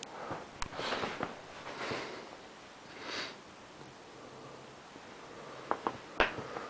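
Maine Coon kitten sniffing close to the microphone: three or four soft, breathy puffs in the first few seconds. A few sharp clicks follow near the end.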